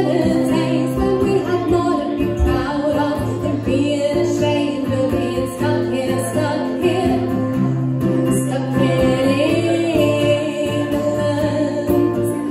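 Live acoustic folk-pop song: a woman singing over a strummed acoustic guitar and ukulele.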